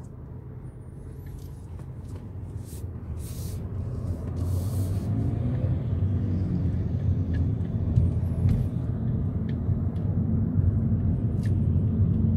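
Car engine and road rumble from inside a moving car, growing steadily louder over the first several seconds as the car gathers speed, then holding. A few faint clicks and a couple of brief high chirps sit above it.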